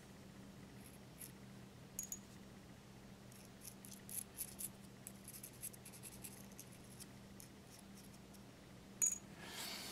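Faint, scattered light ticks and scratches of a thin applicator touched along the broken edge of a porcelain piece while spreading clear Hxtal epoxy, over a low steady hum, with a sharper tick near the end.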